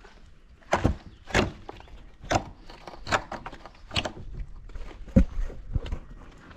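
Irregular wooden knocks and thuds, about one a second: timber formwork being struck and worked loose from the masonry.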